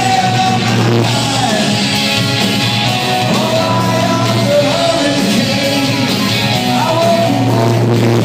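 Rock band playing live, with singing over the band.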